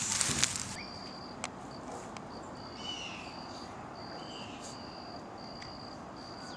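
Insects trilling at a steady high pitch, broken into repeated pulses about half a second long, with two short falling chirps in the middle. A rustling noise in the first second cuts off abruptly.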